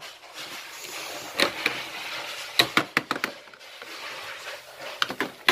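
Plastic toy cookware and utensils clicking and clattering as they are handled, a few light knocks scattered through, over a soft steady hiss.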